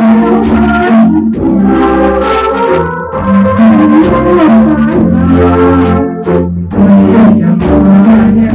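Music: a melody of held notes over a bass line that changes about once a second.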